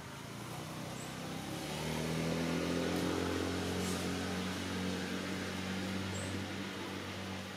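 A motor vehicle's engine passing nearby: a low hum that comes in and rises slightly in pitch, then holds steady for several seconds. A couple of faint, short high chirps are heard over it.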